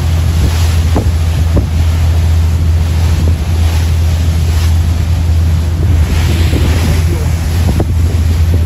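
A marine police patrol boat's engine running under way with a steady low drone. Heavy wind buffets the microphone over the rush of waves and spray.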